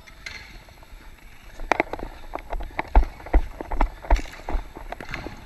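Running footsteps of the camera-wearing player on dek hockey court tiles: after about a second and a half, a steady run of thuds about two and a half a second, each with a sharp click.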